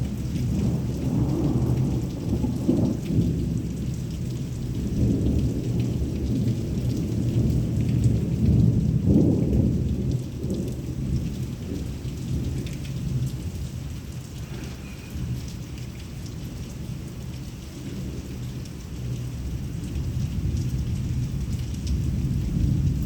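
Heavy rain falling steadily, with thunder rumbling and swelling several times; the loudest roll comes about nine seconds in.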